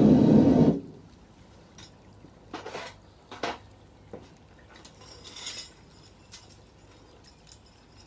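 Gas-fired furnace burner running with a steady low rumble, cutting off abruptly under a second in. After that, a few light metallic clinks and clanks as tools and aluminium scrap are handled.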